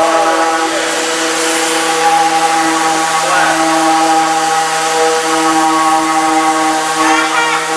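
A power tool's electric motor running at a steady speed, a constant hum with no change in pitch.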